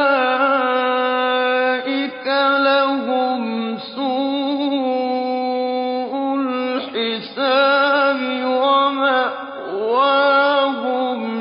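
A man's solo voice reciting the Quran in slow, melodic chanting, holding long notes with wavering ornaments, with brief breaks between phrases.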